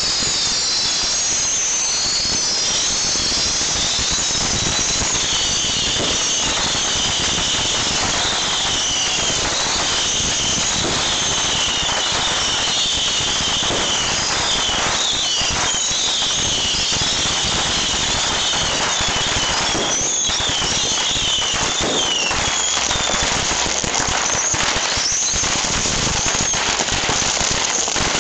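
A homemade multi-rocket launcher firing a mass of bottle rockets at once: a dense, steady hiss of burning rocket motors, overlapping high wavering whistles, and a running scatter of small cracks and bangs.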